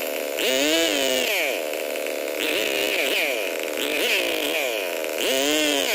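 Two-stroke 070 chainsaw engine revved up and let back down about four times, its note rising and falling each time over a high whine.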